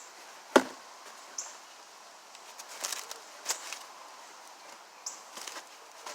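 Handling of a cardboard box and packaging while unboxing a replacement pressure washer pump: a sharp knock about half a second in, then scattered taps and rustles.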